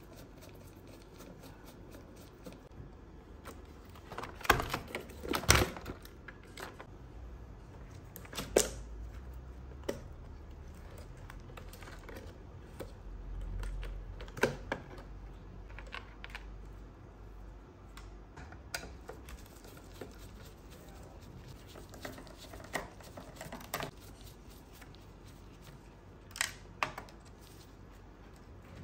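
Scattered clicks and knocks of an old radio cassette player's plastic housing and circuit boards being handled and pulled apart. The loudest cluster comes about four to six seconds in, with a faint low rumble through the middle.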